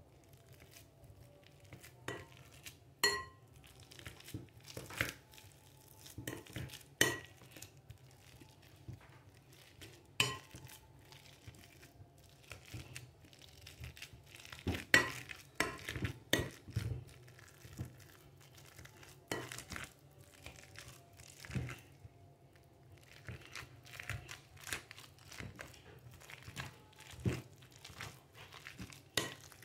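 Metal potato masher mashing peeled bananas in a glass bowl: irregular clinks and knocks of the masher against the glass every second or two, a few ringing briefly, with the soft fruit being crushed between strokes.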